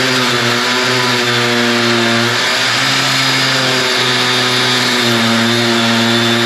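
Metabo angle grinder with a cut-off blade cutting into metal tubing over a gearbox's splined shaft: a loud, steady motor whine whose pitch sags a little at moments as the blade bites.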